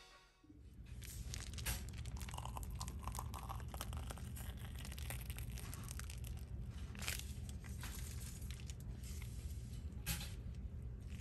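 Faint crinkling and rustling of a plastic piping bag and gloved hands as whipped body butter is piped into a clear plastic jar, with a few light clicks and taps.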